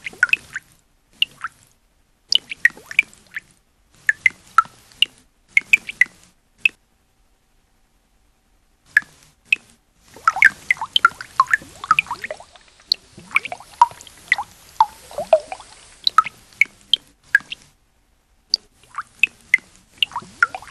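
Computer-synthesized liquid sound: many short, pitched bubble blips, like drips and plops, made by simulated air bubbles forming and bursting in a particle-based liquid. They come in clusters of a second or so, separated by short silences, with a longer, denser run of bubbling from about ten to sixteen seconds in.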